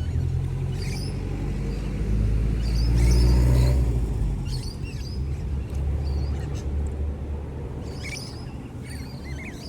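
Low engine rumble of a motor vehicle, swelling to its loudest about three seconds in and then easing off, with small birds chirping in short calls throughout.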